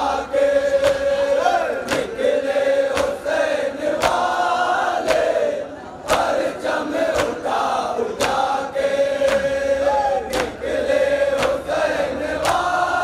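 Men singing a Muharram noha lament together in a chant, led by one voice, with sharp slaps of hands beating chests (matam) in a steady rhythm. The singing drops briefly about halfway through.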